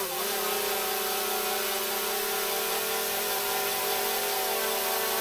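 DJI camera drone hovering close by in a room, its propellers giving a steady buzz of several tones at once, with a brief dip in pitch at the very start as it adjusts.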